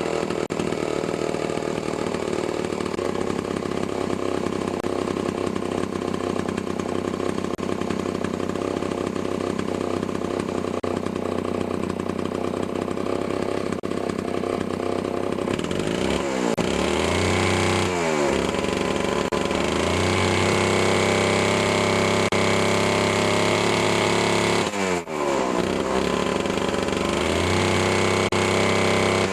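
Vintage Homelite C9 two-stroke chainsaw engine running steadily, then revved up and back down several times in the second half as the throttle is worked. The owner suspects its carburetor may need a rebuild kit.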